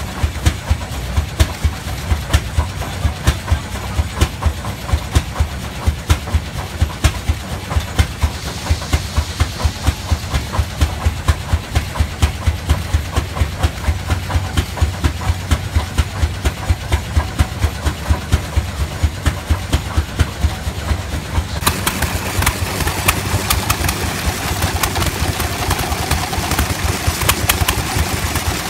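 Rumely OilPull tractor engine running slowly, its exhaust chuffing in an even beat of about two a second. About three-quarters of the way through the sound changes suddenly to a smaller stationary gas engine running.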